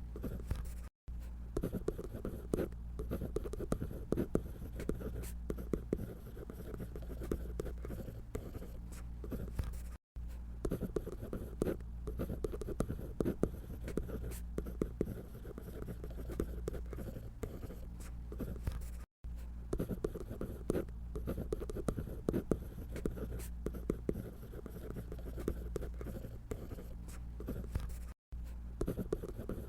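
Drawing on paper: a pencil or pen scratching in quick, continuous strokes as a figure is sketched, broken by a brief gap of silence about every nine seconds.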